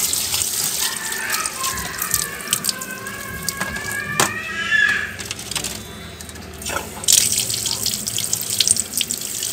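Running tap water splashing onto snails in a plastic basket and over rubbing hands, rinsing off the snails' slime after a lime scrub. The splashing goes quieter for a couple of seconds a little past the middle, then picks up again with small clatters.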